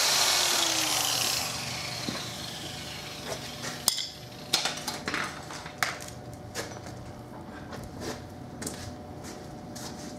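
Angle grinder with a wire cup brush spinning down after being switched off, its whine falling in pitch and fading over about a second and a half. Then a run of scattered metallic clinks and knocks over a faint steady hum.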